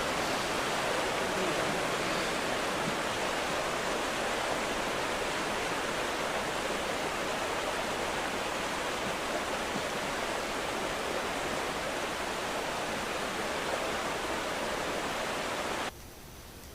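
Steady, even hiss with no voices or distinct events; it drops abruptly to a much lower level about a second before the end.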